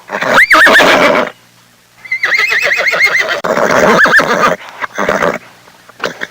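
Horse whinnying several times: a call that jumps up in pitch and quavers down right at the start, a longer rapid quavering whinny from about two seconds in, and a shorter one about four seconds in.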